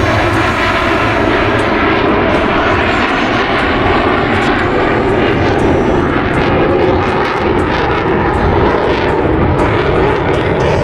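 Loud, steady engine noise of jet aircraft in flight.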